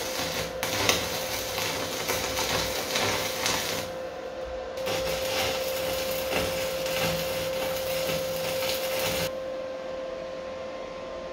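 Electric arc welding on a steel tricycle axle: the arc crackles and sputters in two runs, with a short break about four seconds in, and stops about nine seconds in. A steady hum runs under it throughout.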